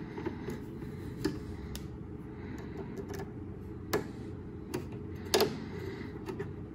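A screwdriver working the feed-dog mounting screws of a home sewing machine as they are tightened, giving a few sharp metallic clicks over a steady low hum.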